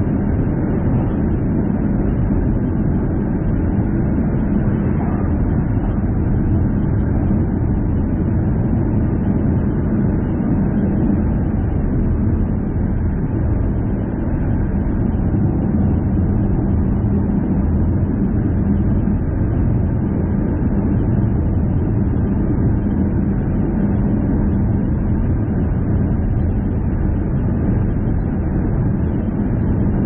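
Steady road and engine noise of a car being driven at a constant pace, with a low, even hum running under it.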